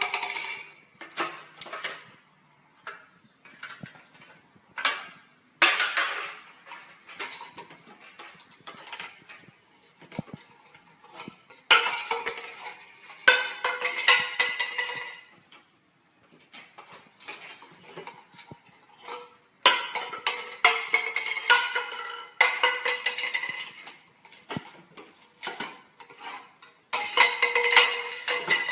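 Cockatoos giving harsh pitched squawks and screeches in repeated bursts of one to two seconds, with short clicks and clinks in between.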